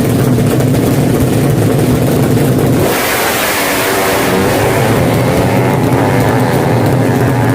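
Drag-race motorcycle engines running loud and steady, then about three seconds in a louder surge as one accelerates hard, its engine pitch climbing.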